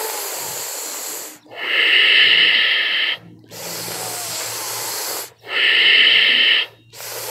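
Sheetkari pranayama breathing: long hissing inhales drawn in through closed, bared teeth, alternating with two shorter, louder exhales out through the nose.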